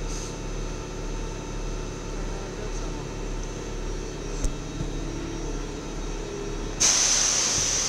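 Steady hum and whine of the standing HLE 11 electric locomotive 1182 and the platform around it, with a short sharp knock about halfway through. Near the end a loud steady hiss sets in suddenly.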